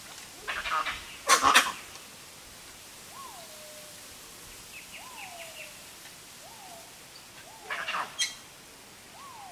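Crackling rustles of bamboo leaves and stems as a dusky leaf monkey shifts and handles the branches around it: a pair of bursts in the first two seconds, the second the loudest, and another pair near the end. Behind them a faint falling whistle repeats about every second and a half.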